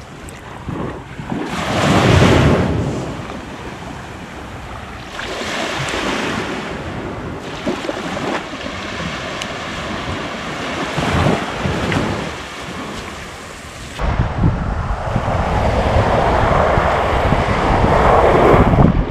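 Sea waves washing in and breaking on the shore, swelling and falling back every few seconds, with wind on the microphone. About three-quarters of the way in, a louder, low wind rumble sets in suddenly.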